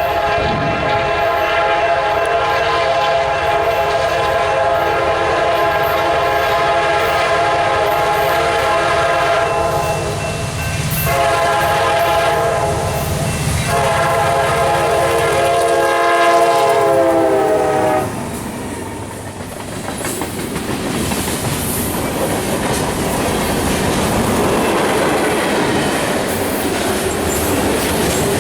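CSX freight locomotive's air horn sounding a chord in three blasts: a long one of about nine seconds, a short one, and a last one that falls in pitch as the locomotive passes. The train's cars then roll past as a steady noise.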